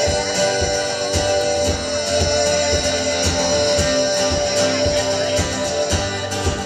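Two acoustic guitars playing an instrumental passage of a song, with a steady strummed rhythm and a long held note above it.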